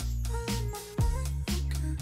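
Background music with a steady beat of about two strokes a second over held bass notes, with a short melody line in the middle.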